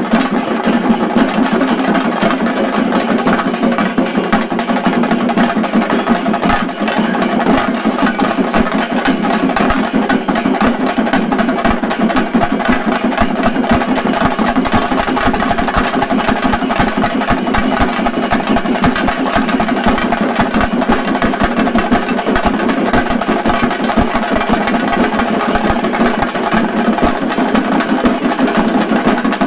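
A chenda drum ensemble (shinkarimelam) playing fast, continuous stick strokes.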